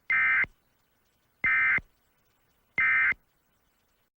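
Emergency Alert System end-of-message (EOM) signal: three short digital data bursts, each about a third of a second, evenly spaced a little over a second apart. This is the SAME code sent to close an alert.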